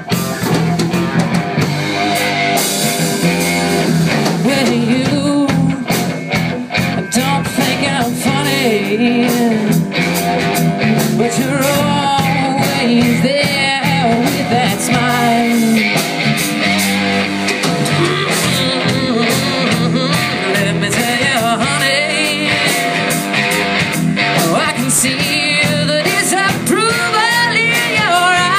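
Live blues-rock band playing: electric guitar with bent, wavering lead notes over electric bass and a drum kit, loud and steady throughout.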